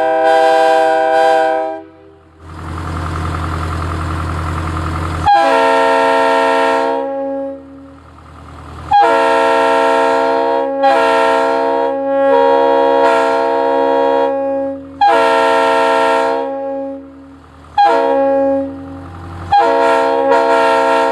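Locomotive air horns on compressed air, sounding about half a dozen chord blasts of one to three seconds each, most opening with a sharp attack. Early on, a stretch of rushing air with a low steady hum fills the gap between blasts.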